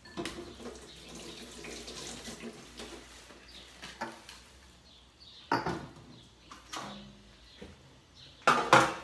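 Kitchen tap running into a sink for a few seconds, followed by a few sharp knocks and clatters of kitchenware, the loudest pair near the end.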